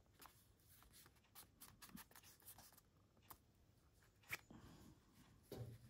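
Faint paper handling on a journal page: soft rustles and small scattered taps, with one sharper tap about four seconds in.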